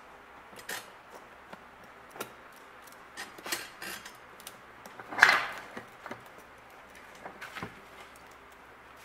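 Handling noises as a DRO scale cable's metal connector is plugged into the back of the digital readout and screwed down: scattered light clicks and short rubbing sounds, with a louder rubbing scrape about five seconds in.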